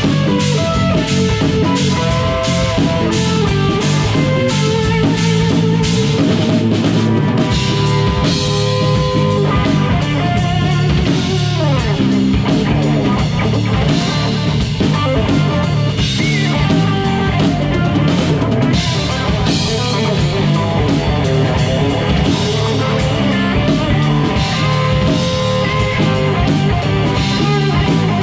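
Live rock band playing with guitars and a drum kit, a steady beat under it.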